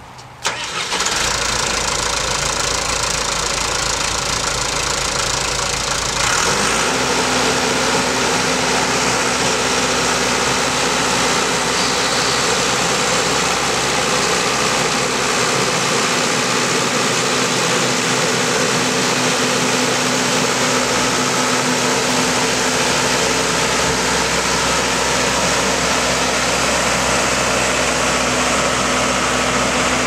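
1988 Cedarapids CR-331 asphalt paver's diesel engine starting about half a second in, then running steadily. At about six seconds the engine note picks up and a steady hum joins in as the paver drives off.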